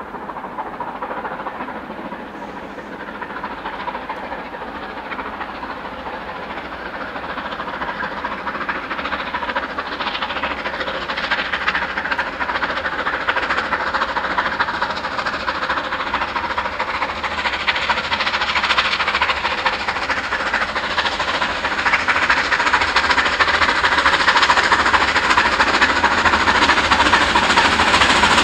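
Bulleid Battle of Britain class steam locomotive 34067 Tangmere, a three-cylinder Pacific, working hard up a bank with a loaded train. Its exhaust beat grows steadily louder as it approaches.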